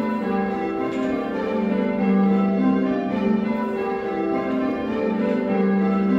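A ring of six church bells, a 1978 Whitechapel six with the tenor in G, rung in Devon-style call changes. The bells strike one after another in a steady, unbroken sequence, their tones overlapping, heard from the ringing chamber below the bells.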